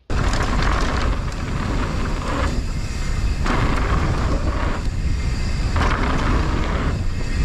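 Mountain bike riding fast down a dirt trail: heavy wind rush on the microphone with tyre and trail noise, and a hissing that swells and fades every second or so.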